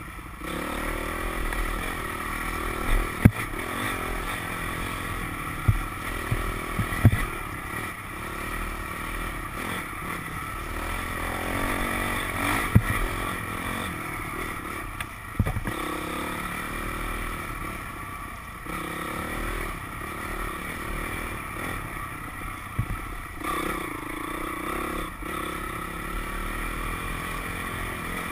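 Dirt bike engine running under varying throttle on a rough trail, its pitch rising and falling, with several sharp knocks and clatter along the way.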